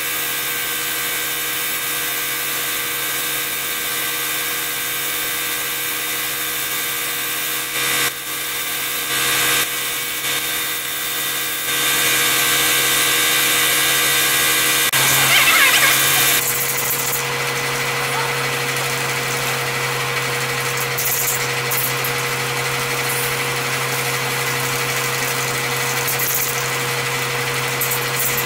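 Paint spraying over a car hood: the steady whine of the air-supply motor under the hiss of the spray, which grows stronger about halfway through and then comes in short bursts as the guide coat goes on.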